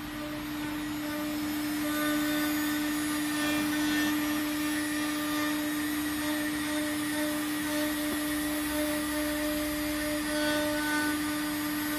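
CNC engraving and milling machine at work: the spindle runs with a steady whine while the cutter mills a clamped board. The cutting noise grows louder about two seconds in, then holds steady.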